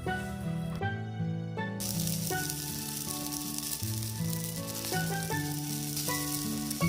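Shishamo (smelt) sizzling as they cook, the sizzle cutting in about two seconds in, under background music.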